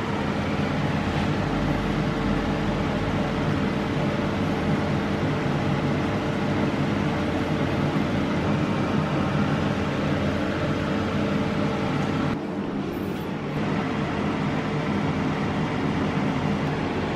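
Steady motor hum with a few held tones over an even hiss, dropping briefly about twelve seconds in.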